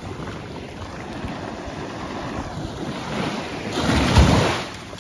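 Surf washing onto a sandy shoreline, with a wave breaking that swells to its loudest about four seconds in and then falls away.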